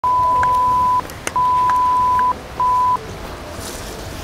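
A steady 1 kHz censor bleep tone, sounded three times in quick succession: about a second, again about a second, then a short half-second one. It is the standard bleep laid over swearing. A sharp click falls between the first two tones, and there is faint background noise in the gaps.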